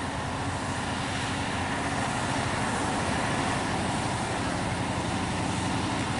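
Diesel engine of a MAN TGS 40.440 heavy truck running under load as it hauls crane boom sections up a narrow road toward the listener, a steady drone that slowly grows louder as it comes closer.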